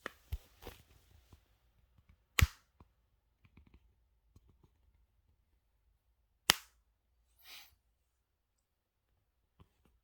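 A knee joint popping: two loud, sharp pops about four seconds apart, with several fainter clicks before them.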